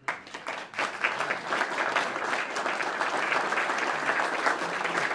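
A roomful of people applauding: steady, dense clapping that breaks out suddenly at the start.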